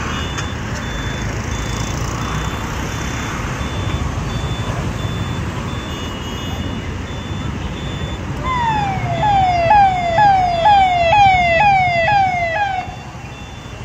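Steady street din, then about eight and a half seconds in a police vehicle's siren starts. It gives a falling wail repeated about twice a second for some four seconds, then cuts off suddenly.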